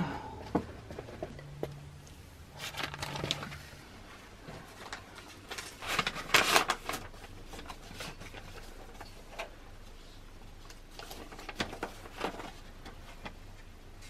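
Paper rustling and crackling in irregular bursts as a folded letter is drawn out of a brown paper envelope and unfolded.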